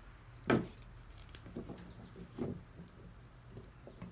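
Pipe clamps being handled: one sharp knock about half a second in, then a few softer knocks and clicks.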